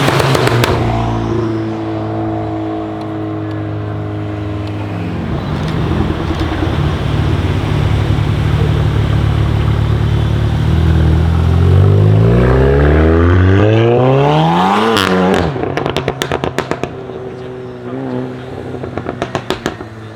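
Tuned Volkswagen Golf 7 R's turbocharged four-cylinder engine held at steady revs, typical of launch control, then climbing for about four seconds under hard acceleration. It cuts off abruptly into a rapid string of exhaust crackles and pops, with a few more near the end.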